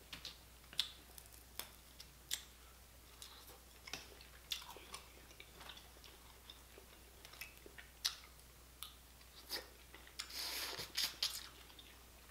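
Boiled crawfish being eaten close to the microphone: shells snapping and cracking in scattered sharp clicks, with chewing, and a longer noisy burst about ten seconds in.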